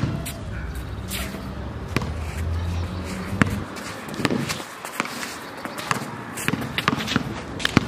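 Basketball being dribbled on an outdoor asphalt court: sharp bounces at irregular intervals, coming in a quicker cluster near the end.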